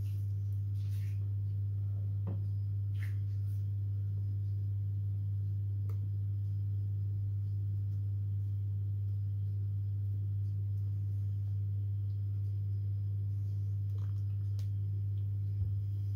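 A steady low hum throughout, with a few faint soft clicks and taps of potato slices being dipped into batter in a glass bowl.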